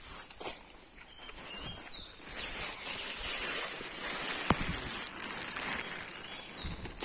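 Footsteps and rustling through dry leaf litter and undergrowth, growing louder from about two and a half seconds in, with one sharp click near the middle. A steady high insect drone runs underneath, and a bird chirps briefly a few times.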